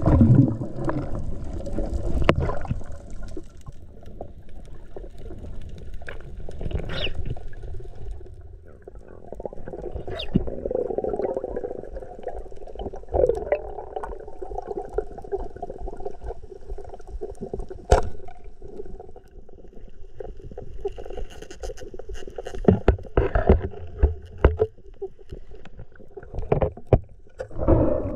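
Muffled water movement and gurgling, with scattered sharp clicks and knocks that come more often near the end.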